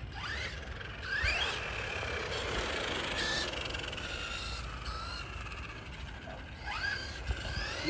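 Losi Baja Rey 2.0 RC truck's brushless electric motor whining as it drives. The whine rises in pitch each time it speeds up, twice near the start and again near the end.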